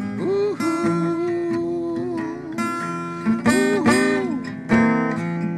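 Acoustic guitar strummed through the close of a folk-style original song, with a few long held notes that bend in pitch.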